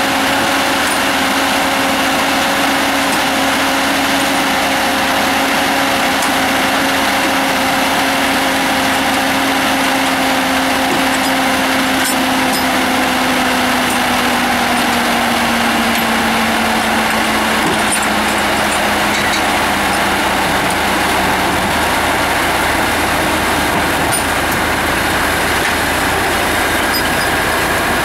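Komatsu 931.1 forestry harvester's diesel engine running steadily with a droning tone as the machine creeps up onto a low-loader trailer. The tone drops slightly in pitch about halfway through.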